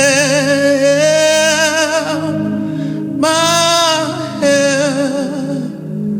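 Gospel worship singing: a solo voice holds long, wavering notes in two phrases, the second starting about three seconds in, over sustained low accompaniment chords.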